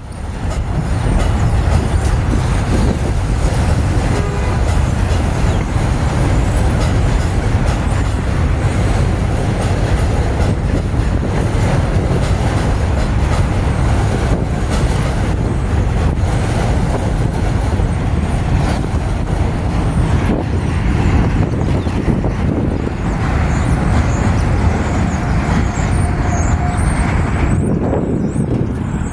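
R62A subway train running on the elevated steel structure, a steady rumble, mixed with street traffic noise.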